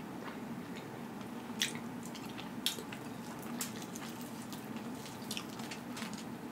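Close-miked eating sounds: a handful of separate, sharp, wet clicks and smacks from chewing and from fingers pulling at a rotisserie chicken. A faint steady hum runs underneath.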